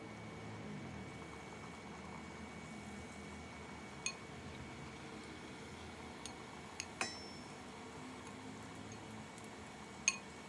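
Chopsticks clinking against a ceramic bowl while tossing coated potato sticks: about five sharp clinks, the loudest near the end, over a faint steady hum.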